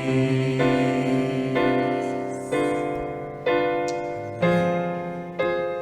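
Piano-sound keyboard playing slow chords, one struck about every second and left to fade before the next: the instrumental close of a sung blessing.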